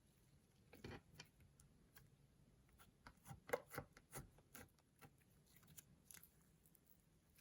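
Faint, sticky clicks and crackles of slime being pressed and worked by hand. There is one burst about a second in, a quick run of clicks a little past the middle and one more near the end.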